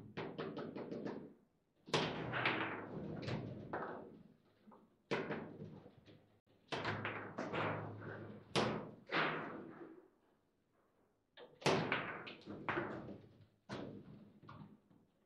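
Table football in play: sharp clacks, knocks and bangs of the ball, the figures and the rods on the table, in irregular bursts, with a quick run of light taps near the start.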